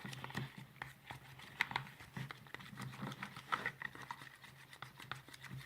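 White PVA glue being stirred in a bowl with food colouring: a run of irregular small sticky clicks and taps, over a steady low hum.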